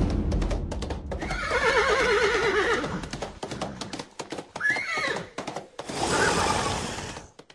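Horse whinnying: one long whinny with a wavering pitch about a second in, over a clatter of hoofbeats, then a shorter second call near the middle. A rush of noise follows and cuts off suddenly at the end.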